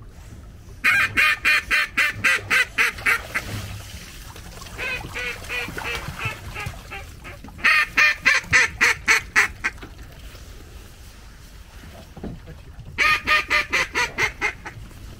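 A duck call blown in quick runs of loud quacks, about seven a second. Three loud runs start about a second in, near eight seconds and near thirteen seconds, with a softer run between the first two.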